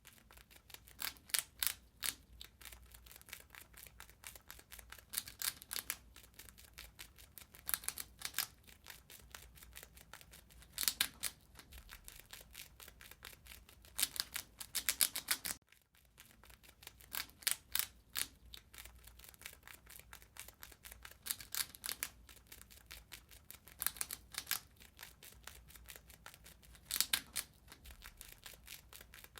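Rat gnawing and chewing: quick runs of sharp, crisp crunching clicks every couple of seconds, over a faint low hum.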